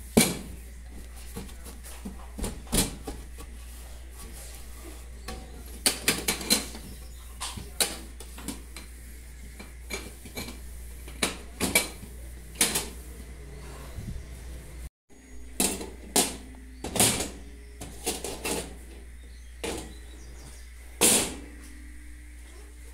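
Scattered sharp metal clinks and knocks on a gas stove's stainless-steel top while it is wiped down with a cloth and its wire pan grates are set back over the burners.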